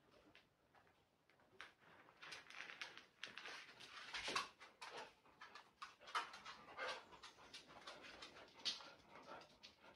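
A dog whimpering softly, a string of short whines scattered throughout.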